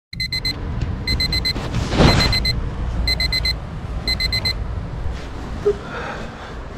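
Electronic alarm beeping in quick groups of four beeps, one group about every second, stopping about four and a half seconds in. A low rumble runs underneath, with a louder swell of noise about two seconds in.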